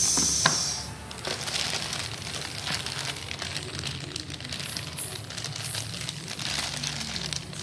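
Clear plastic bag of wiring crinkling and rustling as it is handled, loudest just at the start.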